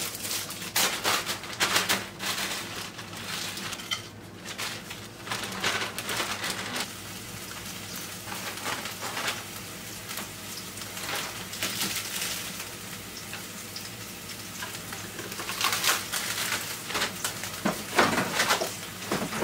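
Plastic food packaging crinkling and rustling as it is opened and handled, with scattered small clicks and light kitchen clatter; the crackling is busiest at the start and again near the end.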